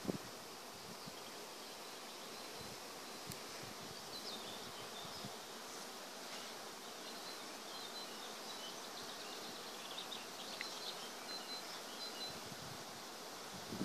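Many honeybees flying around the entrances of a row of hives, making a steady, even hum, with faint short high chirps here and there.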